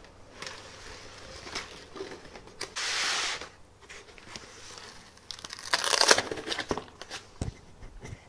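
Packaging being handled as a metal frame part is pulled from its foam-packed box: scraping and crinkling rustle, with a long scrape about three seconds in and a louder burst of rustling and knocks around six seconds in.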